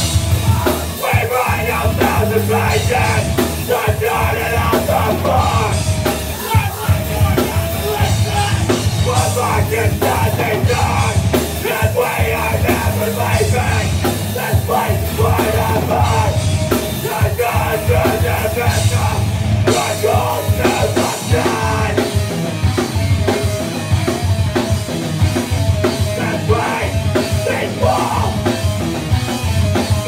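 Hardcore band playing live and loud: bass guitar, electric guitar and a pounding drum kit, with yelled vocals.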